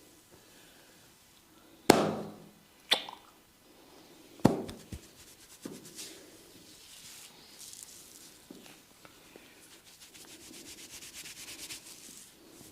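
Hands at work in a head massage: a few loud, sharp smacks over the first several seconds, then fast, steady rubbing of hands over skin and hair.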